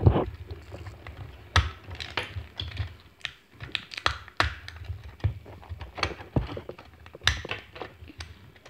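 Irregular clicks and taps of hard plastic as fingers pry at and handle the clip-together segments of an L.O.L. Surprise toy ball.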